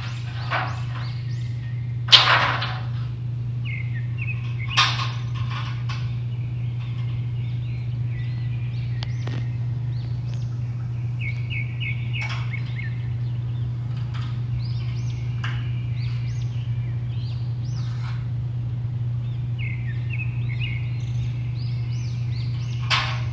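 Small birds chirping in short repeated calls over a steady low hum, with a few sharp knocks, the loudest about two seconds in.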